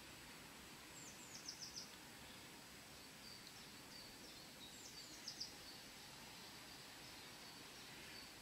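A small songbird calling twice, each time a short run of four or five quick falling high notes, over a faint steady hiss.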